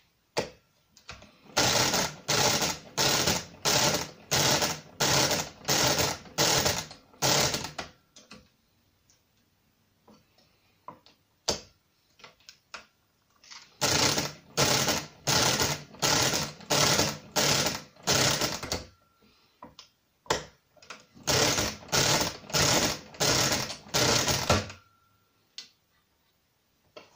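Brunsviga pinwheel mechanical calculator being hand-cranked: three runs of repeated crank turns, about ten, then eight, then six, each turn a rattling mechanical whirr, with single sharp clicks between the runs.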